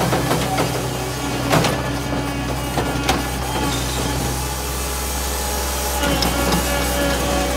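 The asphalt paver's engine running steadily, with a couple of sharp knocks early on and a change in its note about two-thirds of the way through.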